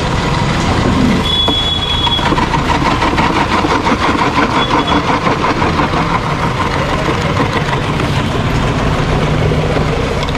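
Motor-driven ice crusher running and grinding blocks of ice into crushed ice: a steady machine hum under a dense, continuous crunching.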